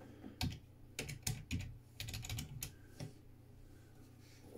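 Typing on a computer keyboard: irregular runs of quick key clicks that stop about three seconds in.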